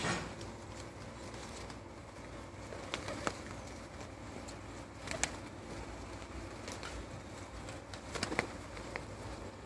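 A flock of Ödemiş süslüsü fancy pigeons feeding, with a steady low cooing, a brief flutter of wings at the start and a few sharp taps scattered through.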